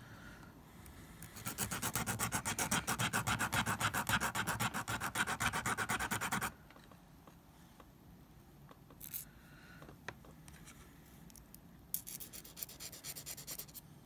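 A small dentalium shell being filed with a nail file in quick back-and-forth strokes, a rubbing rasp that smooths the shell's end so it won't cut beading thread. The filing runs for about five seconds, stops, and starts again for a shorter run near the end, with a couple of faint ticks in between.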